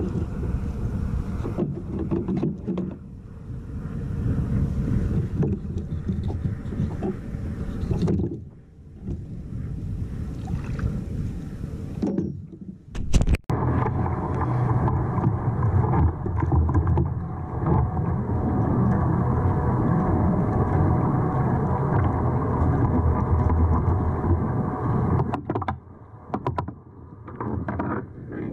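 Wind buffeting the microphone over water lapping against a kayak's hull: a steady, low rumbling noise that briefly drops out a little under halfway through.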